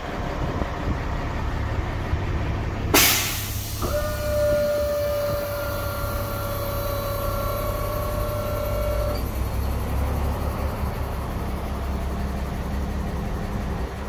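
Mercedes-Benz Unimog U 1650's turbo-intercooled diesel engine idling. About three seconds in there is a sharp burst of hissing air, then a steady whistling whine that lasts about five seconds and cuts off.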